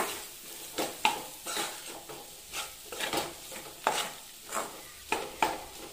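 Metal spatula scraping and knocking against a metal kadai, about two strokes a second, as potato pieces are tossed in spiced oil over a low flame, with a soft sizzle underneath.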